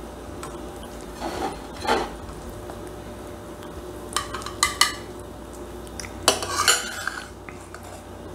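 Metal serving utensil scraping and clinking against a stainless steel pan and a plate as shepherd's pie is dished out. A few soft scrapes come in the first two seconds, then sharp clinks in two clusters about four and six seconds in.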